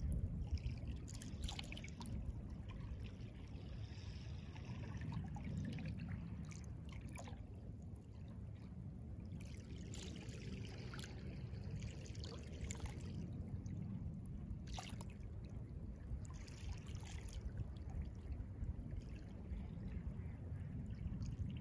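Small waves of calm seawater lapping and trickling at the water's edge, with scattered light splashes over a steady low rumble.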